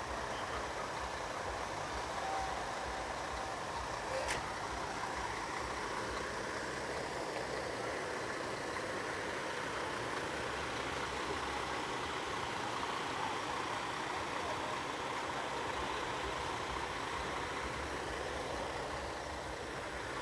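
Truck engine idling steadily, with one short click about four seconds in.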